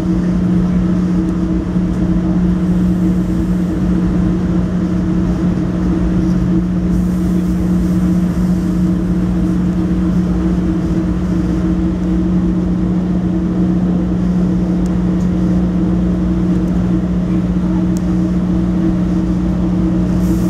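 Steady vehicle hum: a constant low drone that holds one pitch throughout, over an even background rumble.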